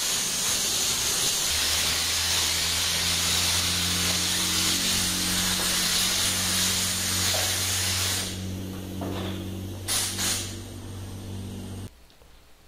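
Air spray gun hissing as it sprays a thin black guide coat over primer on motorcycle plastic parts, with a steady low hum joining about a second and a half in. The spraying stops about eight seconds in, followed by two short spurts near ten seconds, and the sound cuts off suddenly near the end.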